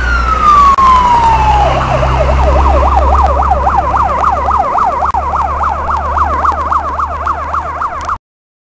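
Fire engine siren finishing a long wail that falls in pitch, then switching a little under two seconds in to a fast yelp of rapid up-and-down sweeps, over the low rumble of the truck's engine. The sound cuts off suddenly near the end.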